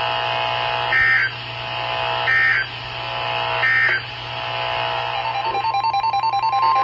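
Weather radio alert signalling: three short digital data bursts about a second and a half apart, the end-of-message code closing the severe thunderstorm warning, over steady background tones. About five and a half seconds in, a warbling two-tone sound and the steady warning alarm tone begin, announcing the next warning, a tornado warning.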